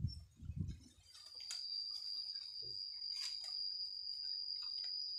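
Two low thumps near the start, then a steady high-pitched insect drone that starts about a second in and holds, with a few faint clicks over it.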